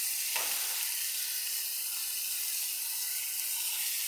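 Pork leg steaks sizzling steadily as they fry in oil in a nonstick frying pan.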